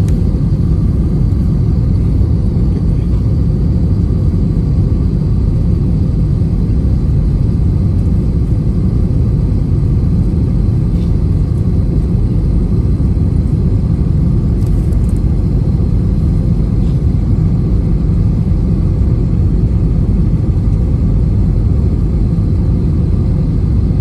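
Steady, loud low rumble with no pauses or changes.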